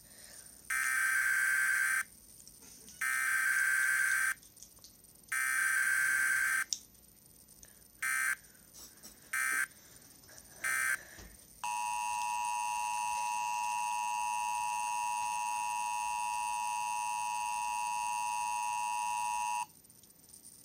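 Emergency Alert System signal: three loud screeching data bursts of the coded header, a few shorter bursts, then the steady attention tone for about eight seconds before it cuts off.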